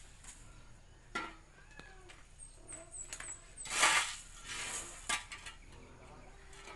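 Dry corn kernels scraped and rattled across a concrete floor with a long-handled tool, in a few uneven strokes, the loudest and longest about four seconds in.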